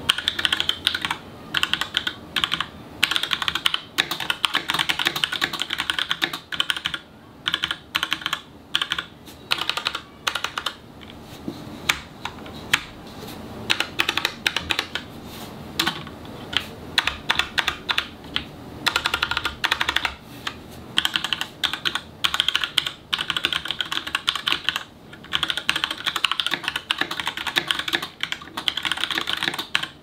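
Fast typing on a SteelSeries Apex M750 mechanical keyboard with QX2 switches: a rapid, continuous clatter of keystrokes, broken by short pauses every few seconds.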